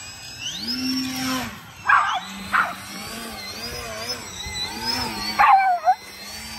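A dog barking in short excited bursts, about three times, the last one a longer bark that drops in pitch. Underneath runs the steady, slightly wavering whine of an electric RC plane motor, which rises in pitch early on.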